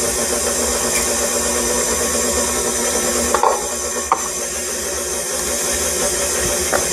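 KitchenAid stand mixer running steadily, its motor humming evenly as the paddle turns in the bowl. There are a couple of faint ticks about halfway through.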